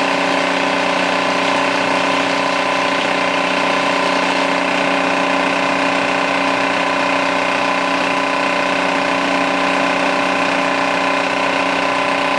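Philips DP70 70mm film projector running, a steady mechanical hum that holds unchanged throughout.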